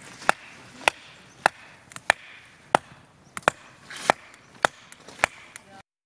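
Tent pegs being hammered into the ground: about ten sharp, evenly spaced knocks, a bit more than half a second apart, some followed by a quick second tap.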